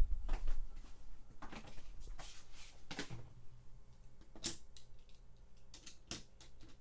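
Die-cast toy cars being handled and set into the plastic starting gate of an orange Hot Wheels drag track: a scattered string of about six light plastic clicks and knocks.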